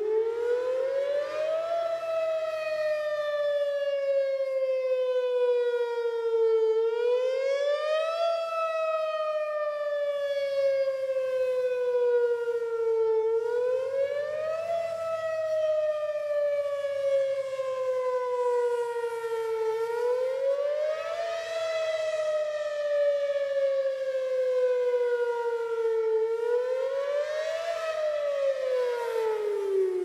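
Whelen Vortex R4 rotating outdoor warning siren sounding its attack signal. The pitch rises quickly, then slides slowly down, over and over about every six and a half seconds, with reverb from nearby trees. At the very end the pitch drops away as it begins to wind down.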